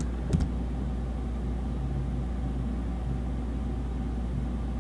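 Steady low background hum with a little hiss, even throughout, and two faint clicks near the start.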